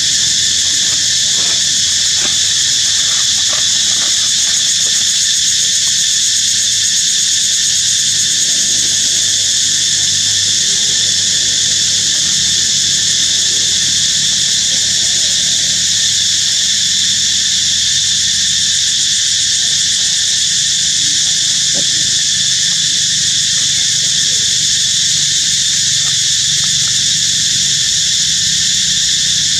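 Loud, steady, high-pitched insect chorus that goes on without a break.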